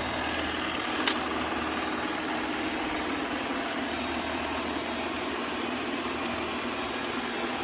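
Shark AV2310AE Matrix robot vacuum running in spot-clean mode, a steady motor and suction hum, with one brief click about a second in.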